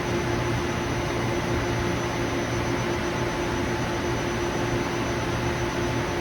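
Taiyo Koki CVG-13 grinding machine running steadily: an even hiss with a constant hum and a thin high tone, no change in pitch or level.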